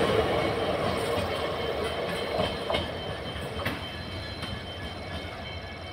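Passenger coaches of an Indian Railways express rolling over the rails, fading steadily as the tail of the train pulls away. A few sharp clacks over rail joints come about halfway through, over a faint high ringing.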